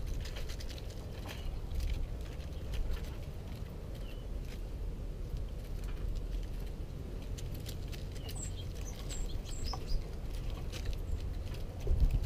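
Small songbirds feeding on seed scattered on a snowy porch floor: faint scattered pecking and hopping clicks, with several short, high chirps about eight to ten seconds in. Near the end a flutter of wings as a bird flies in and lands close by.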